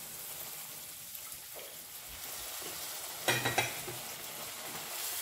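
Milk hitting hot ghee and roasted moong dal in a pan, sizzling and bubbling steadily while a wooden spatula stirs it through. A short clatter of knocks a little over three seconds in.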